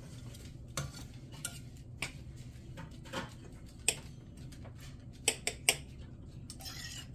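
A metal spoon clinking and scraping against a glass jar and a Griswold No. 10 cast-iron skillet as solid beef tallow is scooped and knocked into the pan. The taps are sharp and scattered, with three quick ones close together near the end.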